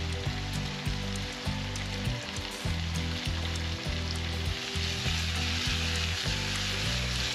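Food frying in a pan, a steady sizzle that grows louder about halfway through, over background music with a bass line.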